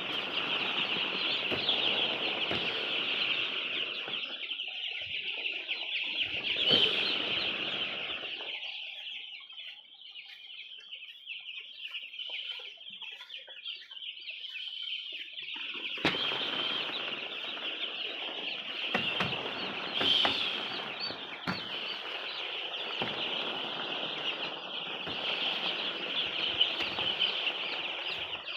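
A shed full of chickens calling at once: a steady, dense chorus of high peeping and clucking. A lower rustling runs under it for the first eight seconds or so and again from about sixteen seconds in.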